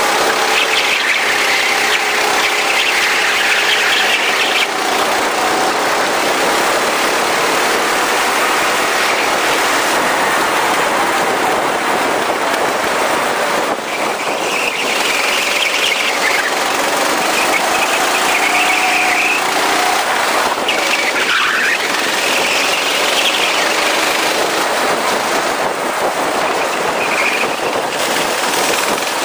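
Go-kart engine running at speed, its pitch rising and falling with the throttle, under a steady rush of noise. Tyres squeal several times through corners, about a second in, in the middle, and again near the end.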